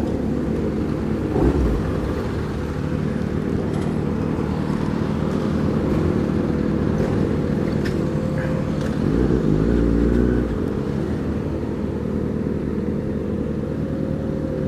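Motorcycle engine running under way, heard from an onboard camera with road and wind noise. The revs rise and the engine gets louder for about a second and a half near the ninth second, then settle again.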